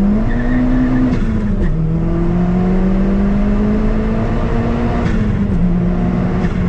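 Big-turbo 1.4-litre turbocharged four-cylinder of a Chevy Sonic pulling under hard acceleration. Its engine note climbs with revs and drops sharply at two upshifts, about a second in and again near the end.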